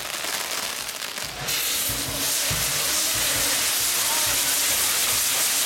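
Fireworks tower (castillo) fountains burning with a steady hiss of spraying sparks, which grows louder and brighter about a second and a half in as more fountains catch.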